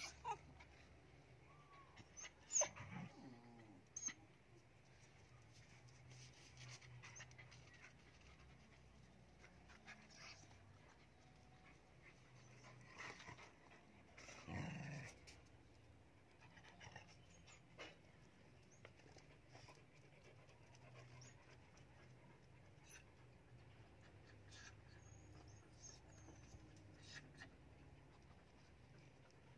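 Small dogs faintly panting and moving about, with a few short sharp sounds in the first few seconds and one louder sound of about a second roughly halfway through.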